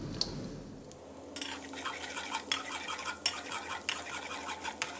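Steel wok spatula scraping and clinking against a steel wok, stirring minced garlic frying in hot oil. The irregular scrapes start about a second in.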